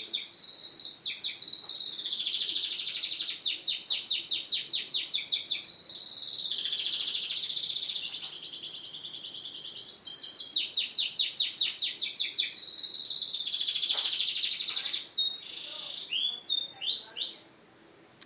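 Yellow canary in full song: runs of fast repeated notes alternating with long high rolling trills. The song breaks off about fifteen seconds in, followed by a few short separate notes.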